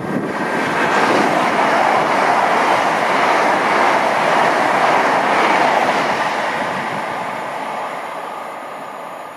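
LNER Class 800 'Azuma' train passing through the station at speed: a loud, steady rush of wheels on rail and air. It holds for about six seconds, then fades as the train draws away.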